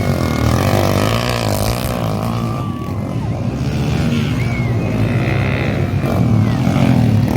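Motocross dirt bikes' engines running and revving on the race track, a steady, loud drone that shifts in pitch as the riders work the throttle.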